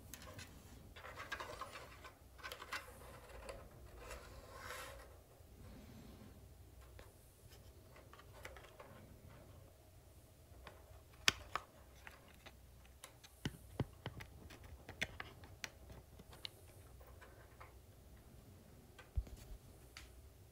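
Faint rustling of wires followed by scattered small plastic clicks, from handling the water heater's plastic control panel and its probe wiring and connectors.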